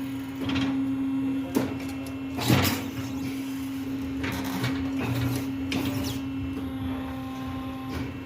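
Tyre changer machine running with a steady electric motor hum as its turntable turns the wheel. The new tyre's bead scrapes and squeaks against the rim and mounting head several times as it is worked on.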